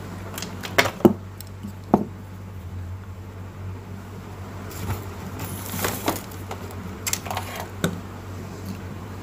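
Scattered sharp clicks and short bouts of rustling clatter from small plastic parts being handled: the opened CFL bulb and its lamp holder. A steady low hum sits underneath.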